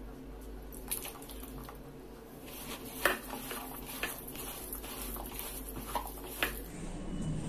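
A hand squishing a wet spice-and-flour paste in a bowl, fingers scraping the bowl's sides, with a few sharp clicks against the bowl. The loudest click comes about three seconds in.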